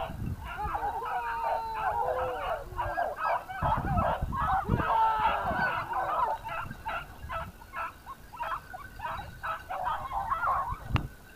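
A pack of hunting hounds baying during a boar drive, many voices overlapping in a continuous chorus of short calls.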